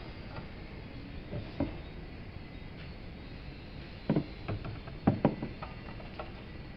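Scattered knocks and clicks of tools and parts being handled while a washing machine is taken apart, with a cluster of sharper knocks about four to five and a half seconds in.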